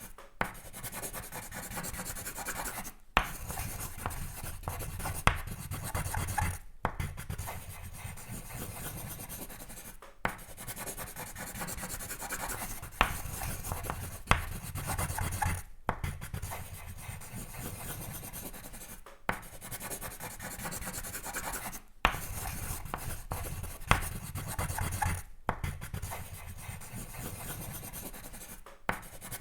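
Sketching on paper: continuous scratchy strokes of a drawing tool rubbing across the sheet. The scratching stops briefly about every three seconds, and several of these stops are followed by a sharp tap as the tool comes down on the paper again.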